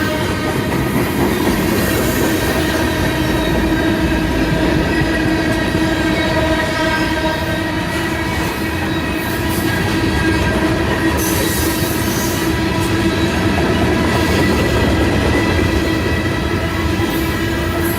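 CSX freight train rolling steadily past at close range: a continuous rumble and clatter of the cars on the rails, with a steady high squeal from the wheels.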